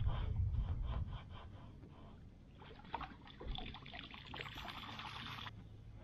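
A plastic bucket is dipped into river water and lifted out, with water splashing and pouring from it for a few seconds before it stops suddenly. A low rumble and some knocks come near the start.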